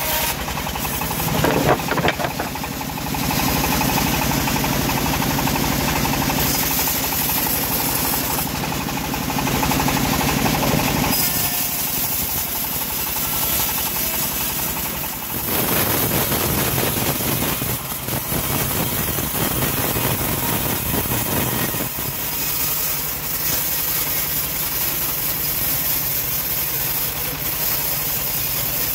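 Homemade band sawmill running and sawing a teak log into planks: a steady, loud machine drone with the blade cutting through the wood. The sound shifts in character several times.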